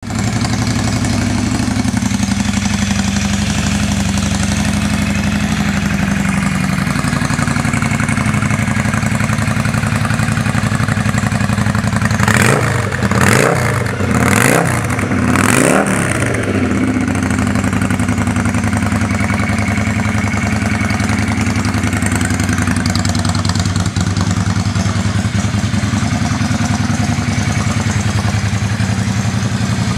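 Yamaha XV535 Virago's air-cooled V-twin engine idling steadily, with the throttle blipped about four times in quick succession about halfway through, each rev rising and falling back to idle.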